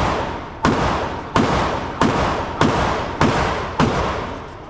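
Rapid string of gunshots, about six, a shot roughly every two-thirds of a second, each followed by a long echoing decay in the range's enclosed space. The string stops about four seconds in.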